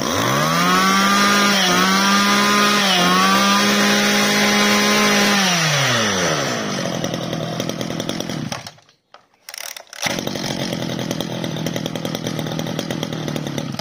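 Stihl FS 2601 brush cutter's 26 cc two-stroke engine revved up to full throttle, held high for about five seconds with two brief dips, then falling back to idle. The sound cuts out for about a second near nine seconds, and the engine then idles on steadily.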